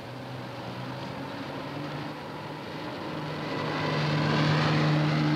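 A steady mechanical drone with a low hum and a few fixed higher tones over a noisy rush, growing louder from about halfway through.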